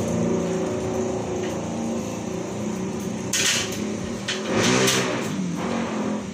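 A motor vehicle's engine running steadily, with two short scraping noises about three and a half and five seconds in.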